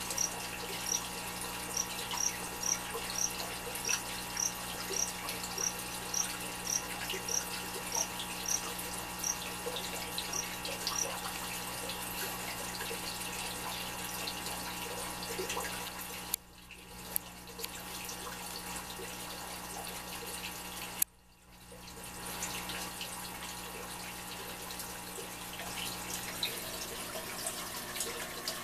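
Steady trickle and hiss of running aquarium water. Through the first third, a short high chirp repeats about twice a second, typical of a cricket. The water sound drops out suddenly twice, about halfway and about three-quarters through, and comes back within a second.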